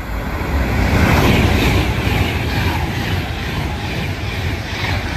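Avanti West Coast Class 390 Pendolino electric train passing through the station at speed: a loud rush of wheels and air that builds about a second in and holds as the carriages go by.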